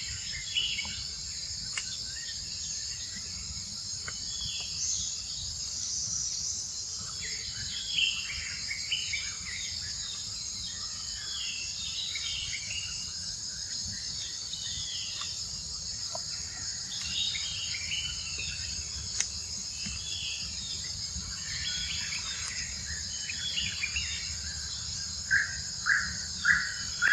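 Steady high insect buzzing outdoors, with scattered short chirping calls over it and a run of about five short, loud squeaks near the end.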